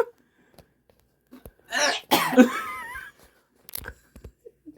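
A person coughs hard and clears their throat about two seconds in, a reaction to having just swallowed dog food.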